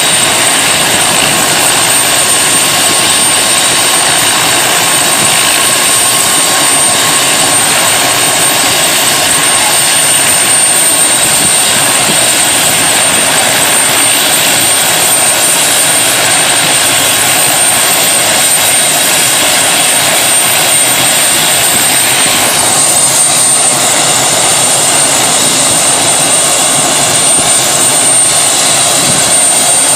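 Helicopter in flight heard from inside the cabin: loud, steady engine and rotor noise with a high, steady whine running through it.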